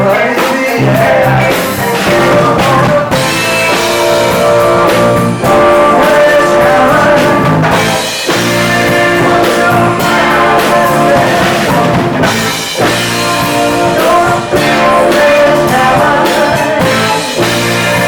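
Live band music with a singer over drums and guitar, played loud without a break.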